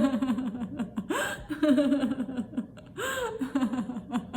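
A woman laughing in several bursts of rapid 'ha-ha-ha' pulses, with short rising whoops between them: the deliberate laughter of a laughter yoga exercise.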